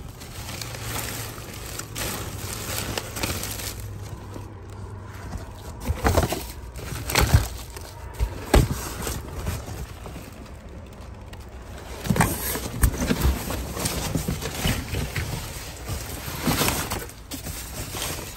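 Plastic bags, bubble wrap and cardboard rustling and crinkling as dumpster rubbish is rummaged through by hand, with several sharper crackles and knocks. A low hum runs under the first few seconds.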